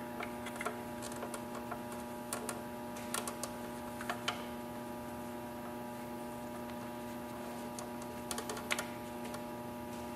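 Light metallic clicks and taps as a brake pad is rocked and walked out of a Brembo monoblock motorcycle brake caliper by hand, scattered through the first half and clustered again near the end. Under them runs a steady electrical hum.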